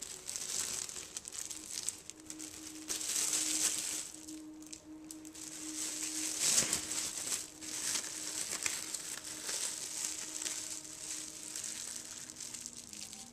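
Thin plastic wrapping crinkling and crackling in irregular surges as hands peel and crumple it off a chub of raw ground beef.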